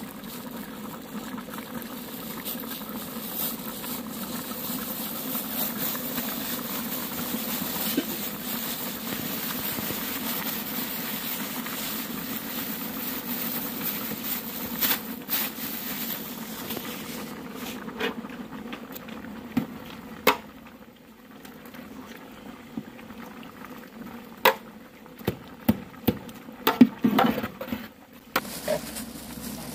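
A large aluminium pot of ash soup boiling, a steady bubbling hiss. From about halfway through it is quieter, with a series of sharp knocks as a ladle is stirred against the pot.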